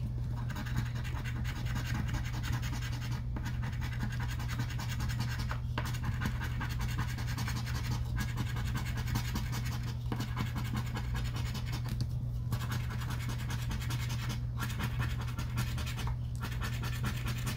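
A scratch-off lottery ticket being scratched with a round plastic scratcher: quick, continuous rasping strokes, with brief pauses every couple of seconds as the hand shifts. A steady low hum sits underneath.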